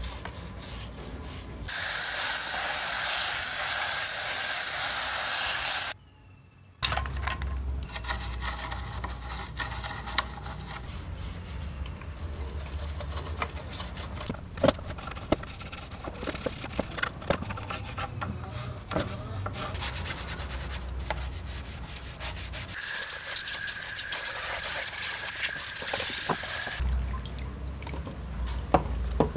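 A brush scrubbing the plastic speaker grille and cabinet of a National Panasonic T-100D transistor radio in soapy water, with scratchy rubbing and small clicks. Twice, for a few seconds each, a steady hiss of spraying or running water.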